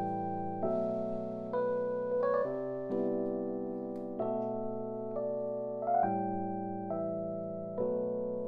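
Jazz keyboard playing held chords with a bass note under them, a new chord struck roughly once a second, each ringing on and fading until the next.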